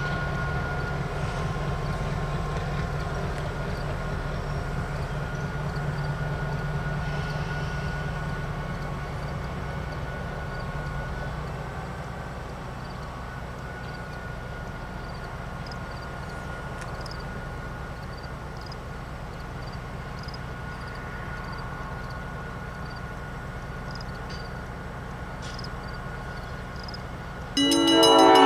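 EMD GP7 diesel locomotive running as it moves off down the track, a steady low rumble with a thin held whine that eases slightly as it goes. About a second before the end a loud train horn blast starts suddenly.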